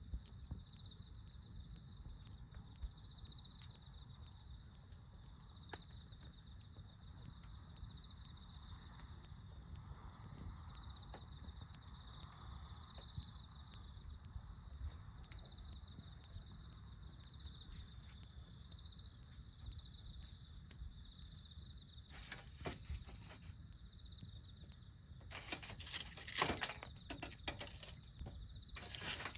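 Wood campfire crackling with small scattered snaps, and a run of louder pops and crackles near the end, under a steady high-pitched trill of insects singing.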